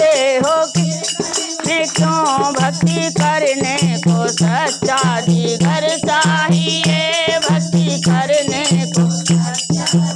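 Women singing a Hindi devotional bhajan to a dholak barrel drum, with a steady repeating bass stroke and hand-shaken jingling percussion keeping time.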